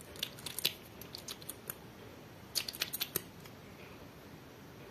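Plastic lip gloss tube being opened and its applicator wand pulled out: quick runs of small sharp clicks and scrapes, one in the first second and a half and a tighter cluster about halfway through.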